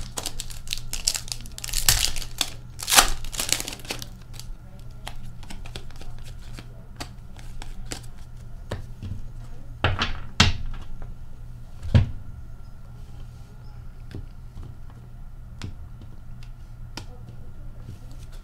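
Trading cards being handled and sorted: rustling and crinkling over the first few seconds, then a few sharp taps around the middle as a stack of cards is squared against the counter.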